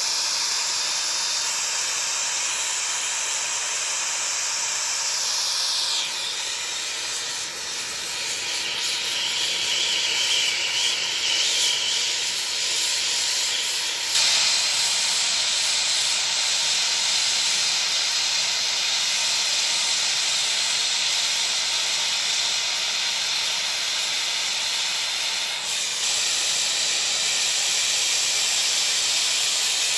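Acetylene turbo torch burning with a steady hiss while heating 3-inch copper pipe for sweat-soldering. Its tone shifts about six seconds in and again around fourteen seconds.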